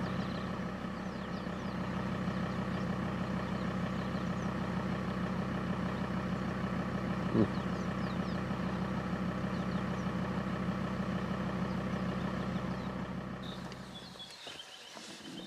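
Vehicle engine idling steadily, with a single short knock about halfway through. Near the end the engine sound cuts out, leaving quieter bush sound with birds chirping.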